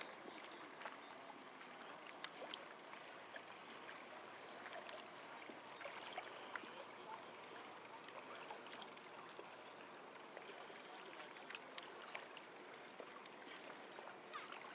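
Faint lapping and trickling of lake water with scattered light ticks. No engine runs: the race boat is broken down and drifting under tow.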